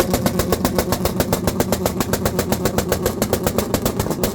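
Honda CRX engine held on a two-step launch-control rev limiter, the exhaust popping in a rapid, even stutter of about ten bangs a second. It cuts off abruptly near the end as the revs fall away.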